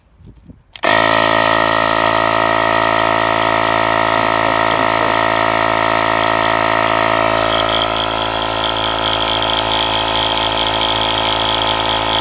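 Oasser cordless tire inflator's 12-volt battery-powered compressor starting abruptly about a second in and running steadily as it pumps air into a car tire. About seven seconds in its tone shifts, with a higher whine added.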